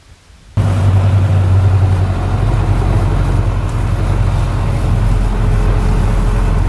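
A vehicle's engine running steadily as it drives, heard from inside the cab, with a strong low hum. It starts abruptly about half a second in.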